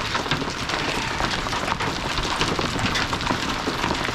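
Small hailstones and rain pelting down steadily, a dense patter of many sharp little strikes.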